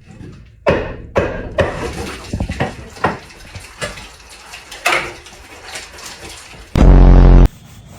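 A run of scattered knocks and clinks, like hard objects being handled and set down, with a loud harsh buzz lasting under a second near the end.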